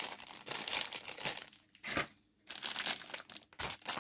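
Clear plastic bag crinkling and rustling as a sprue of plastic model figures is handled, with many small crackles and a brief silent gap about halfway.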